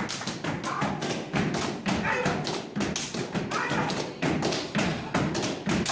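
Gumboot dancers slapping and stamping their rubber boots: a fast, dense run of sharp slaps and thuds.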